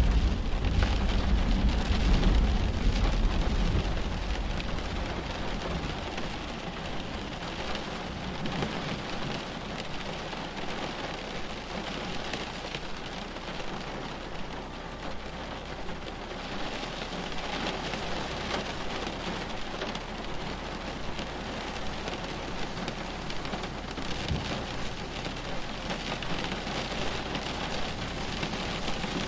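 Steady rain falling, with a low rumble of thunder dying away over the first few seconds.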